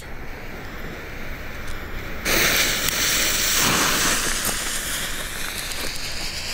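Two small silver volcano firework fountains catching about two seconds in and spraying sparks with a steady, loud hiss.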